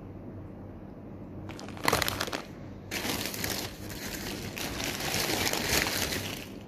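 Plastic bag and instant-noodle packets crinkling as they are handled: a short burst about two seconds in, then continuous crinkling from about three seconds in.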